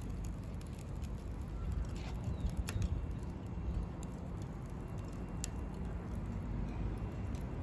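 Wood campfire crackling: scattered sharp pops over a steady low rumble.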